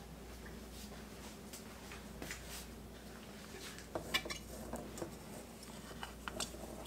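Faint, scattered clinks and scrapes of a silicone spatula working thick whole-wheat sponge dough in an enamel bowl, with a few louder knocks about four seconds in.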